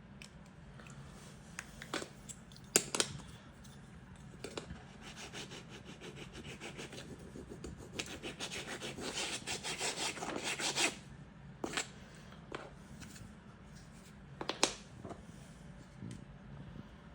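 Quick back-and-forth scraping strokes on a hard floor or tile surface, in two runs, the second louder, with a few sharp knocks or clicks before and after.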